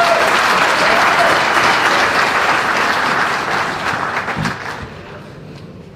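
Audience applauding, loud at first and dying away about five seconds in.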